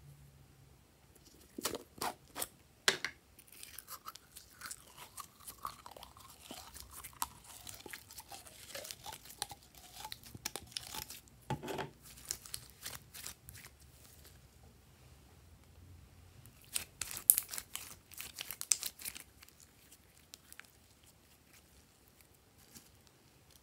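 Metallic blue slime being handled: squeezed out of a bulb-shaped plastic bottle, then squished and pulled, making sticky popping and crackling. There are a few sharp clicks about two seconds in, and the loudest run of pops comes near the three-quarter mark.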